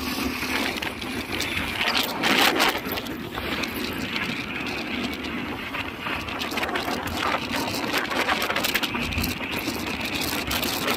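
Motor scooter on the move in traffic: its small engine runs steadily under road and wind noise, louder for a moment about two seconds in.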